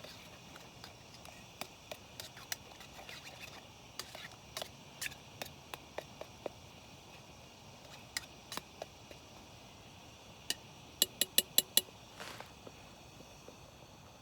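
A utensil knocking and scraping in a camp cooking pot of clam chowder, with scattered single clicks, then a quick run of five ringing taps about eleven seconds in.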